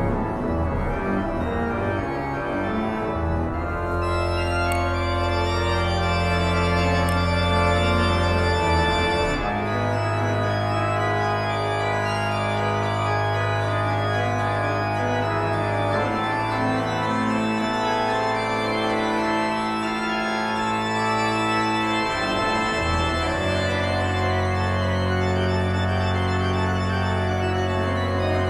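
Organ music: slow, held chords that change every few seconds.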